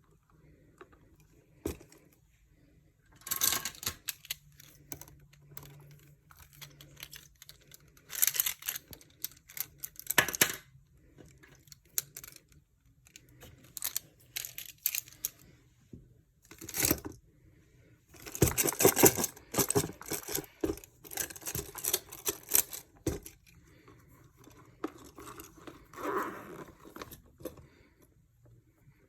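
Pens and pencils being handled and put into a pencil case: several bursts of rustling and crinkling, with sharp clicks and taps in between.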